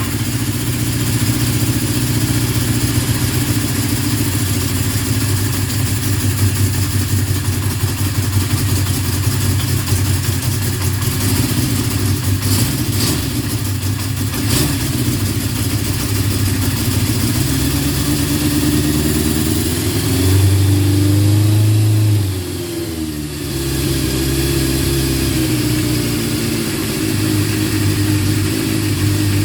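Kawasaki Z650 motorcycle engine running steadily on its first start after a repair. About eighteen seconds in it picks up speed, is held higher for a couple of seconds, then drops back to idle.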